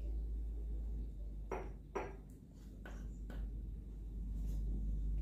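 Four light clinks and knocks of kitchen utensils and dishes, the first two the loudest, over a steady low hum.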